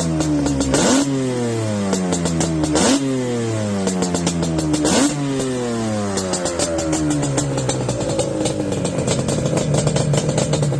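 Yamaha Banshee's 350 cc twin-cylinder two-stroke engine revved in sharp throttle blips about every two seconds, the revs falling away slowly after each. From about six seconds in it settles to a steadier, lower run, with a fine crackle throughout.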